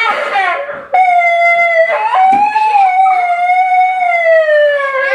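Toy police megaphone sounding a long wailing siren-like tone that slowly falls in pitch, with a short break about two seconds in.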